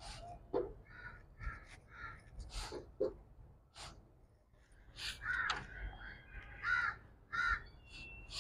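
Crows cawing repeatedly: three short caws about a second in and several more in the second half. A few sharp knocks come in between, the loudest about half a second and three seconds in.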